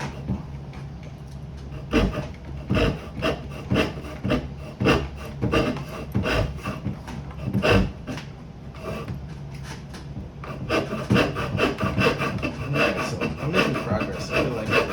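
Hand saw cutting through wood in repeated back-and-forth strokes, slow and spaced out at first, then quicker and more even for the last third.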